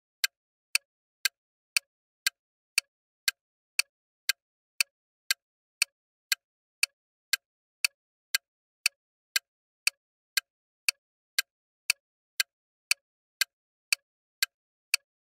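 Quiz countdown-timer ticking sound effect: sharp, evenly spaced clock ticks, two a second, as the timer counts down.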